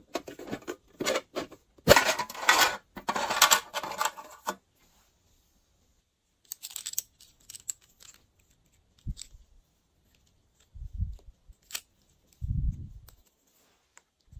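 Glossy slime being handled and mixed with small add-ins: a dense run of crackly clicks and rustles for the first four seconds or so, then scattered clicks and a few soft low squishy thuds.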